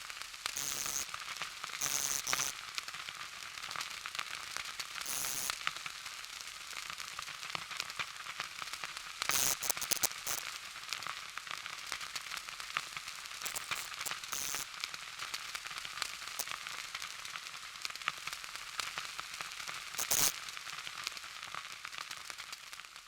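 Faint, steady crackling and sizzling hiss with scattered small ticks and a few louder pops, the lingering tail of a crash-and-explosion sound effect.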